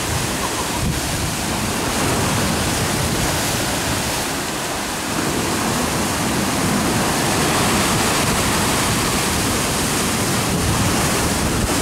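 Heavy surf from a rough sea breaking and churning over rocks: a loud, steady rush of water with no let-up.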